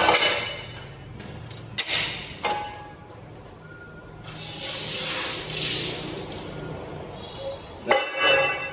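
Non-stick frying pan clanking against the metal grate of a gas stove as it is set down and lifted off, with sharp ringing clicks as the burner is lit. A hiss of about two seconds comes midway, and two more clanks come near the end.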